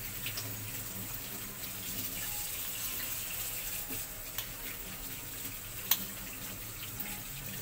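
Steady hiss of water, with a low hum under it and a few light clicks, one sharper click about six seconds in.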